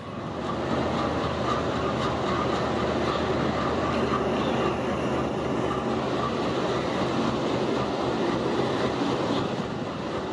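Freight train rolling past at close range: a steady rumble with the clatter of wagon wheels over the rail joints, swelling about half a second in.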